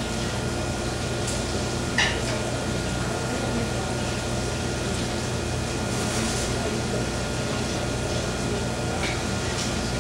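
Steady sizzle of fish searing in a pan over a constant low hum, with one sharp metal clink of a utensil against the pan about two seconds in and a few lighter ticks.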